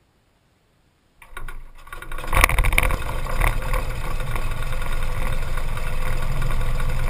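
Cessna 182P's six-cylinder piston engine being started: the starter cranks the propeller from about a second in, the engine catches with a loud burst of firing about two and a half seconds in, then settles into a steady idle.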